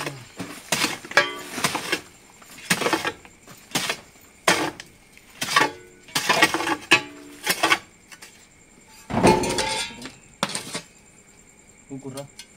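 A hammer striking stones and rubble on the floor: about a dozen hard, uneven blows, some with a short metallic ring, and a longer scraping crunch a little past halfway. The blows stop shortly before the end.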